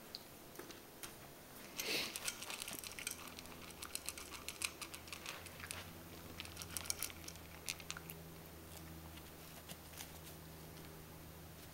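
West Highland white terrier puppy eating dry kibble from a bowl: faint crunching and small clicks of teeth and kibble on the bowl, with a louder rustle about two seconds in.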